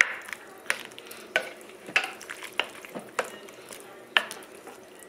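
A plastic ladle stirs chunky vegetable and ground-beef stew in a ceramic slow-cooker crock. The ladle knocks against the crock about eight times, at slightly uneven intervals, with the stew swishing between the knocks.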